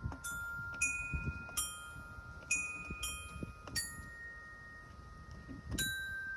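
A Tanzglockenspiel, a bell chime played by stepping on it with the feet: about seven bell notes are struck one at a time at uneven intervals, each ringing on under the next, with dull thuds from the steps. The notes wander up and down without forming a real tune.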